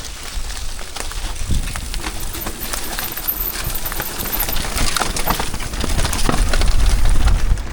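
A bicycle rattling and clattering over rough trail ground, with a low wind rumble on the microphone that builds toward the end.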